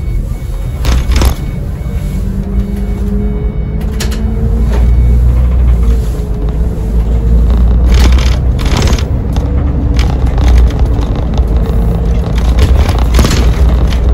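Iveco Crossway Line bus with its Cursor diesel engine and ZF six-speed automatic gearbox under way, heard from the cab: a loud, steady low rumble with a hum that rises and falls in pitch as the bus speeds up and slows. A few sharp rattles stand out about a second in, around eight to nine seconds in, and near the end.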